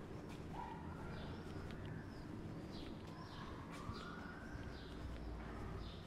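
Small birds chirping over and over, short falling chirps a few times a second, above a steady low street rumble.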